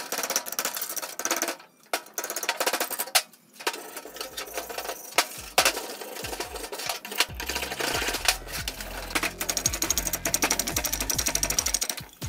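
Rust being scraped and wire-brushed off a rusty water pump housing by hand: quick rasping strokes of a metal scraper blade, then steel wire-brush bristles, on the metal, with two short breaks in the first few seconds.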